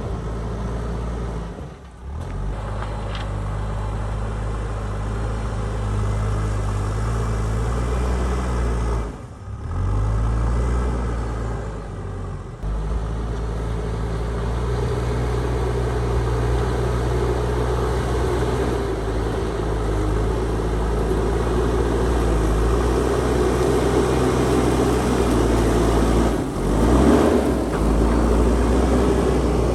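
JCB backhoe loader's diesel engine running steadily while it works. The sound drops out sharply a few times, and the engine note rises briefly near the end.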